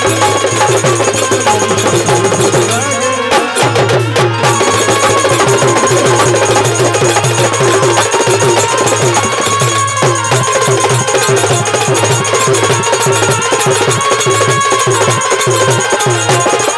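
Live band music for a Bhojpuri folk-pop song with no singing: a fast, steady drum and percussion beat over a sustained bass line and melody.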